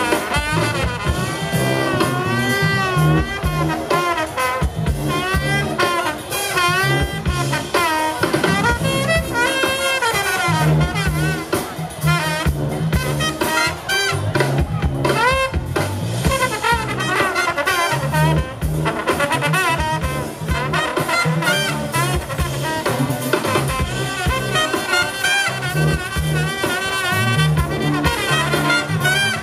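Live brass band playing jazz: sousaphones pump a repeating bass line under trombones, trumpet and saxophones, with drums.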